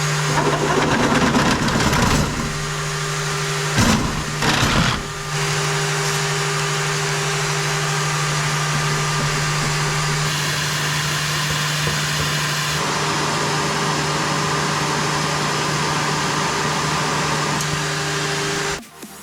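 Small electric pump motor running steadily with a low hum and a hiss while emptying a heating oil tank. It is louder and rougher during the first two seconds and again around four to five seconds in, and cuts off suddenly just before the end.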